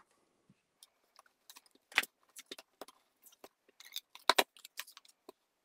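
Plastic tape-runner adhesive dispenser clicking and rattling in the hand as it is run over cardstock, mixed with light paper handling as the panel is pressed down; irregular small clicks, the sharpest about two seconds in and just after four seconds.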